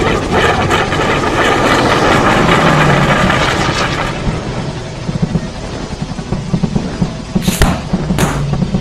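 Battle sound effects: a dense rushing noise like a blast for about four seconds, then low pulsing with two sharp gunshot-like cracks half a second apart near the end.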